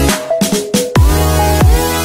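Electronic background music with heavy bass. The bass drops out for roughly the first second, leaving a few sharp hits, then comes back in about a second in.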